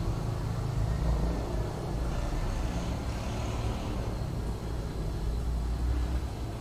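Steady low rumble of background noise, with a faint hiss above it.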